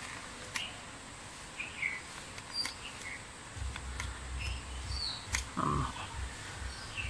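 Birds chirping in short scattered calls, with a few sharp clicks from small metal starter-motor parts being handled over a metal tray. A low rumble comes in about halfway.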